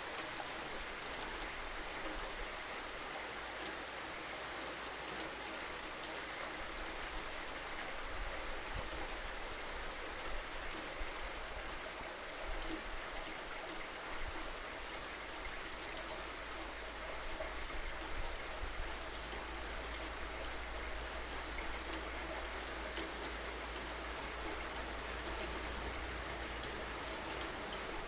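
Steady rainfall, an even hiss of rain with scattered individual drops, over a low constant rumble.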